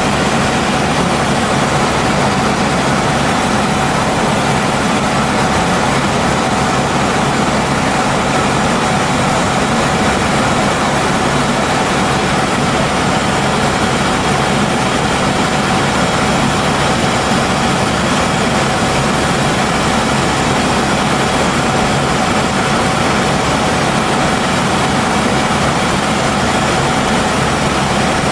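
Helicopter in flight heard from inside the cabin: loud, steady engine and rotor noise with a constant high tone running through it.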